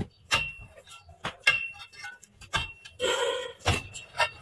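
A long metal bar jabbed down into gravelly ground, giving a series of sharp knocks at uneven intervals, some with a light metallic ring.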